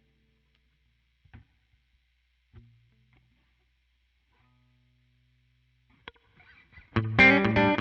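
A pause with a few faint clicks and a faint low hum. About seven seconds in, an electric guitar with Zexcoil Legacy Signature P90-style pickups starts playing loudly through a clean Helix Twin Reverb amp model, with notes struck in quick succession.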